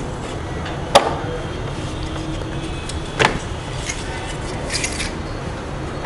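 Plastic clicks and knocks from the louver flap and casing of a split air conditioner's indoor unit being handled by hand: two sharp clicks, about a second in and just past three seconds, and faint ticks near the end, over a steady background hiss.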